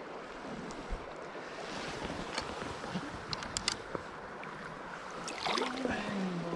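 Stream water running steadily, with a few small clicks and handling knocks in the middle.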